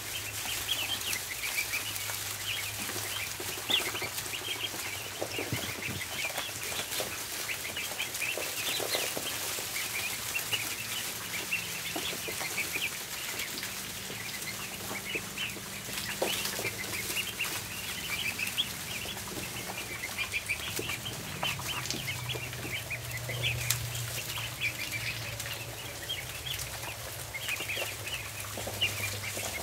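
A flock of ducklings peeping, many short high chirps overlapping without pause, over a low steady hum.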